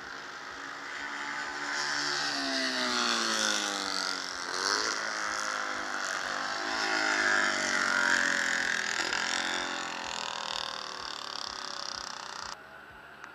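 Racing cars passing at speed on the straight, engines at high revs, the pitch falling as each goes by; a second pass follows a few seconds after the first.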